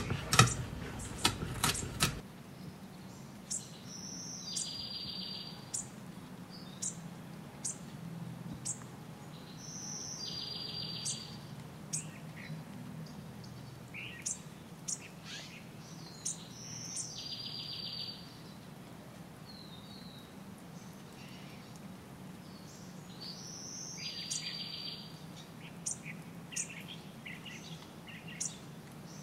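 Recorded birdsong: birds chirping and calling, with one short call pattern recurring about every six and a half seconds over a steady low hum. A few sharp clicks sound in the first two seconds.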